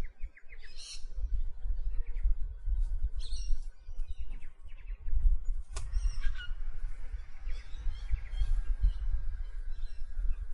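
Birds calling in bush, with short squawking and chirping calls and a thin, steady high note in the second half, over a low, fluctuating rumble.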